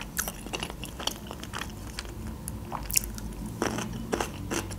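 Close-miked chewing with many short, crisp, wet crunches, as of biting into a pickled gherkin.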